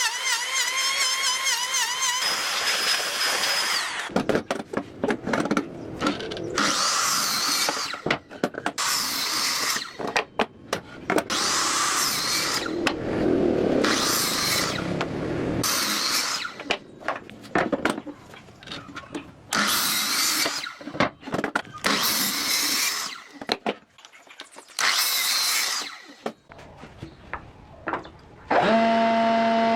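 Power tool working wood in repeated bursts about a second long, each stroke a hissing grind or cut with short gaps between. A brief warbling tone comes first, and near the end a motor starts and runs at a steady pitch.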